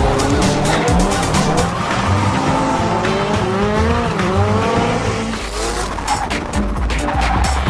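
Drift cars' engines revving up and down with tyre squeal as they slide through corners. About five seconds in the sound cuts to a steadier low engine drone.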